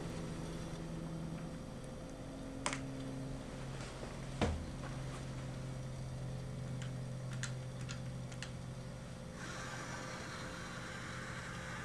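Light clicks of buttons pressed on the turret's keypad, over a steady electrical hum. Two sharper clicks come early, the second the loudest, then a quick run of lighter clicks; a hissing whir fills the last couple of seconds.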